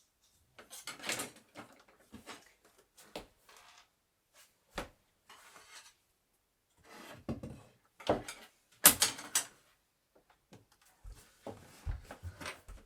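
Wooden bed parts being handled during assembly: irregular scrapes and sliding sounds with wooden knocks and clunks, the loudest a sharp knock just under nine seconds in, and a few low knocks near the end.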